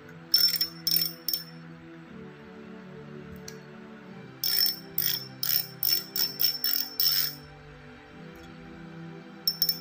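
Homemade clicker on a Shimano FX spinning reel, fitted to click louder, giving sharp high-ringing clicks in short bursts as the spool is worked by hand. There are a few bursts about a second in, a quick run of about eight a few seconds later, and two more near the end, over soft background music.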